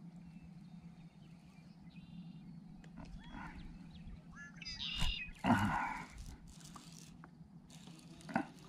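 Animal calls: a few short calls, then a louder call about five and a half seconds in, over a steady low hum. A short knock comes near the end.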